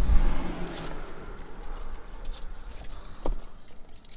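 Several fishing rods with reels being gathered up off a vehicle seat: a low bump of handling at the start, then scattered light clicks and knocks of rods and reels against each other, with one sharper click about three seconds in.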